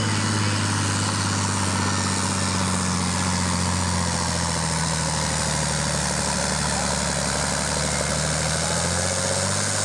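John Deere farm tractor's diesel engine running under full load while pulling a weight-transfer sled. It runs steadily, its pitch sagging a little about halfway through the pull.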